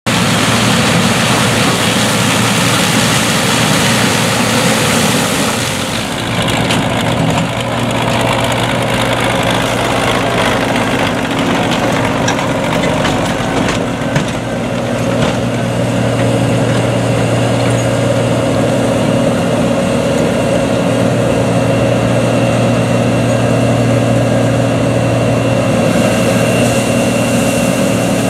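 Diesel engines of heavy farm machinery running steadily: a John Deere 2266 Extra combine harvester working corn and an MTZ tractor with a trailer. The sound shifts about six seconds in, then settles into a steady engine hum with a held low tone.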